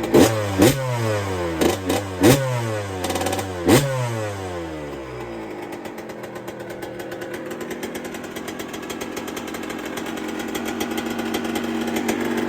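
Yamaha YZ125 two-stroke single-cylinder engine, bored out to 144cc and freshly rebuilt, revved in about five quick throttle blips over the first four seconds, then settling to a steady idle.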